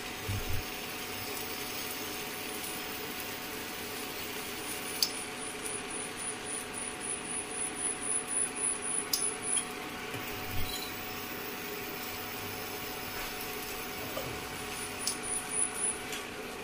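Steel ladle scraping softly and rhythmically against a non-stick pan as it spreads rice-flour batter in circles, mostly in the middle stretch, over a steady faint hum.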